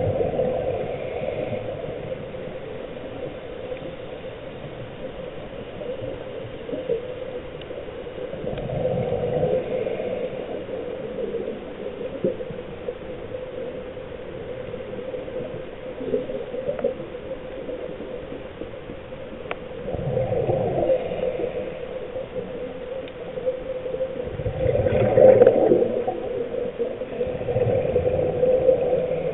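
Scuba diver's regulator heard underwater: bursts of exhaled bubbles every several seconds, the loudest about 25 seconds in, over a steady hum.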